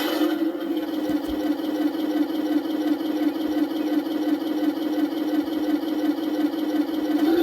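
A radio-controlled model truck's drive running with a steady mid-pitched mechanical hum.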